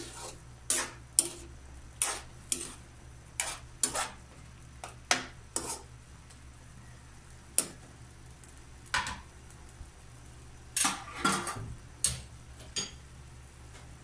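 A metal spoon scraping and knocking against a non-stick wok as chicken gizzards are stirred in their juices: irregular strokes, with a pause after about six seconds.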